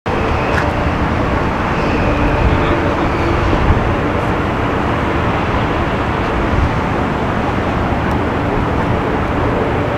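Jet airliner engines running, a steady rushing noise that holds level throughout.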